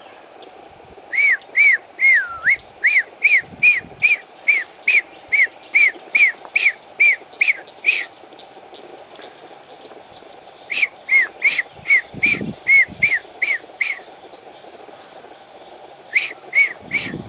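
A small animal's sharp chirping call, repeated about three times a second in three runs: a long run of some twenty calls, a shorter run of about nine, and a few more near the end.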